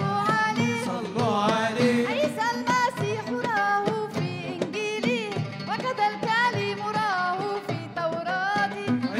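A woman's solo voice singing an Arabic devotional song in praise of the Prophet Muhammad (madih), in long, ornamented, wavering melodic runs over a steady low accompaniment with light percussive strokes.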